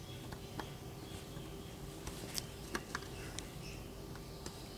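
Faint, irregular clicks and light taps of multimeter probe tips touching IC pins on a circuit board while the chips are checked for a shorted supply, over a faint steady hum.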